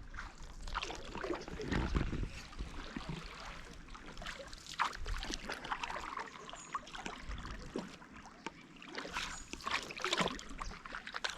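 Paddles of an inflatable kayak dipping and splashing through lake water in irregular strokes, with water trickling off the blades.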